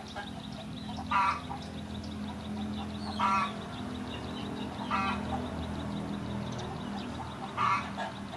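Farmyard fowl giving short honking calls, four of them spaced about two seconds apart, over a faint low hum.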